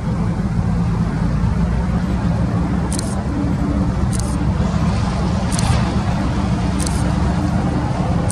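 Union Pacific diesel locomotive running as it creeps along, a steady low engine drone. From about three seconds in, short sharp clicks come roughly every second and a quarter.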